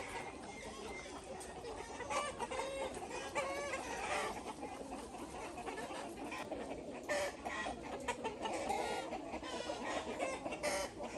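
A flock of laying hens clucking, many short calls overlapping throughout.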